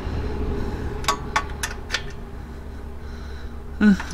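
A wrench clicking lightly on metal while tightening the Coleman CT200U mini bike's loose engine-mount bolts: about five quick clicks about a second in, then a short grunt-like voice sound near the end.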